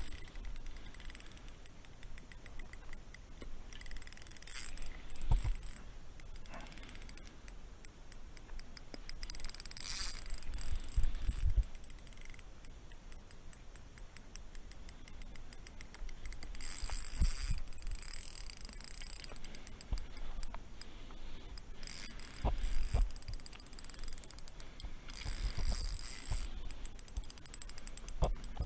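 Spinning reel being worked while a hooked fish is still pulling hard: bursts of small metallic clicking from the reel come and go several times among low handling thumps.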